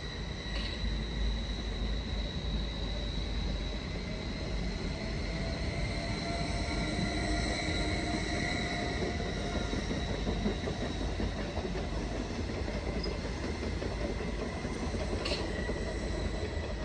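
BRB regional electric multiple unit pulling out and running away along the platform, with steady high-pitched whines and a whine that rises in pitch as it gathers speed, over the rolling noise of its wheels. Two short clicks, one just after the start and one near the end.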